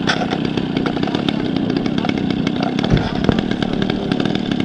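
Two-stroke gasoline engine of a large radio-controlled model airplane running steadily as the model taxis.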